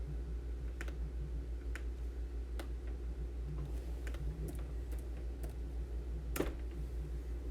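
Scattered key clicks on a computer keyboard, a few single strokes about a second apart, over a steady low hum.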